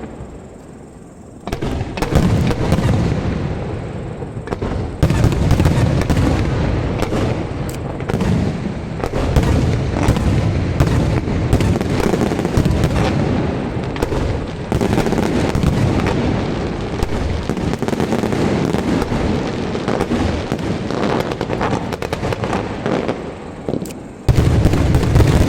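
Fireworks display: a dense, nearly continuous barrage of booms and crackling, which starts in earnest about a second and a half in and swells again near the end.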